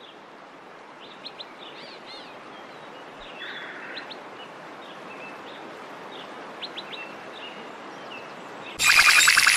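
Steady rush of falling water with birds chirping now and then. Near the end, music cuts in abruptly and much louder.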